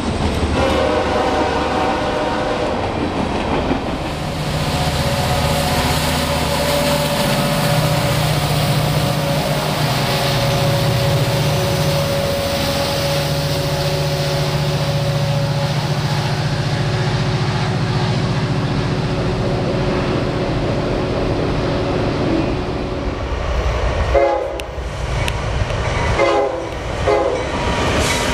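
CSX diesel freight trains passing close by, with a locomotive air horn sounding in the first few seconds, followed by the steady rumble and rattle of freight cars rolling on the rails and the drone of the diesel engines.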